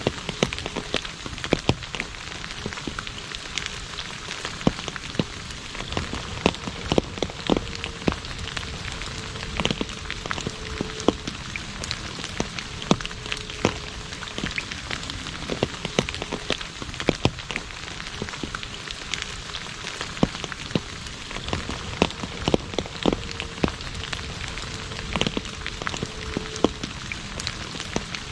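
Rain falling on an asphalt road: a steady patter with many sharp, louder single drops striking throughout.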